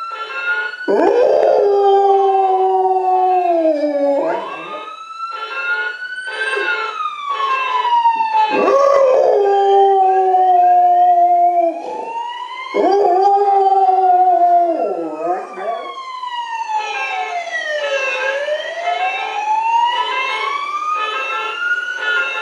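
Golden retriever howling along with a wailing siren: several long howls, each rising, holding a steady pitch and sliding down, over the siren's slow rising and falling sweeps. The dog stops about three-quarters of the way through, leaving the siren wailing alone.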